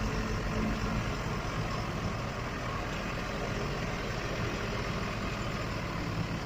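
Backhoe engine running steadily, a low, even drone.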